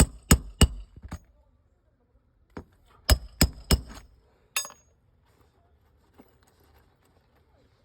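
A hammer striking metal in sharp, ringing blows: a couple of quick strikes, then three rapid strikes about three seconds in and one more ringing hit shortly after.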